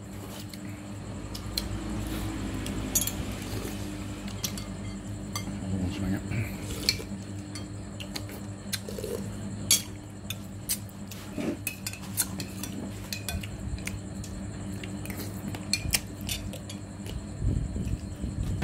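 Spoons and other utensils clinking against bowls and plates at a meal: scattered sharp clinks, over a steady low hum.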